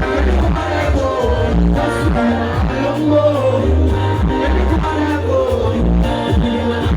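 Live pop music at a concert: a singer's voice over a loud band with a heavy, pulsing bass line.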